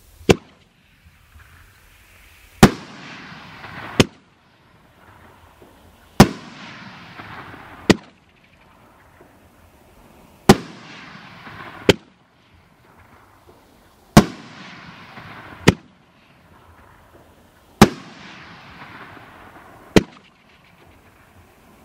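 A 'Migraine' 9-shot, three-inch 500-gram fireworks finale cake firing shell after shell. Each shot is a launch thump followed a couple of seconds later by a louder aerial bang and a fading crackle of the stars, about six shots in all.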